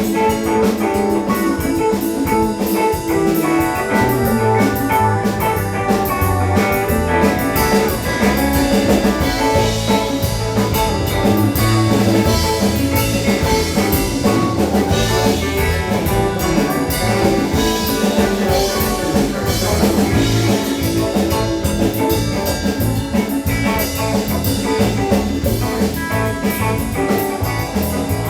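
Live rock band playing an instrumental jam: drum kit keeping a steady beat under electric guitar and other sustained pitched instruments.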